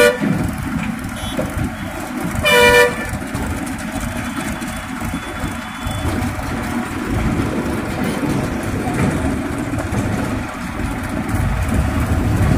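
Two short vehicle horn blasts, one at the very start and a second about two and a half seconds in, over the steady low rumble of a diesel tractor and a Tata truck driving past close by. The rumble grows louder near the end as the truck comes nearer.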